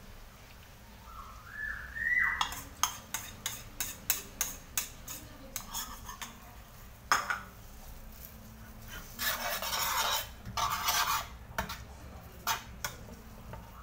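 Metal spoon clinking and scraping against a bowl as starch slurry is scraped into a pan, then a metal ladle scraping and stirring around the metal pan as the sauce is thickened.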